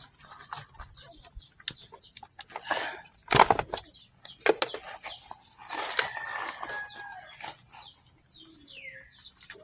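Birds chirping over a steady, high-pitched insect drone, with a few sharp knocks, the loudest about three and a half seconds in.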